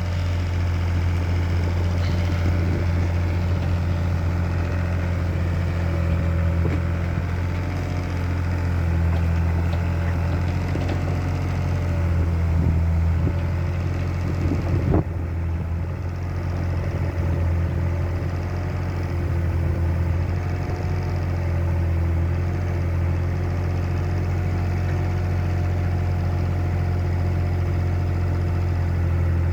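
Vehicle engine running steadily at a low, even hum, with one sharp knock about halfway through.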